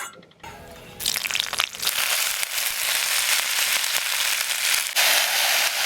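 Diced mixed vegetables going into hot mustard oil tempered with jeera and hing in a kadhai. A loud, steady sizzle sets off about a second in.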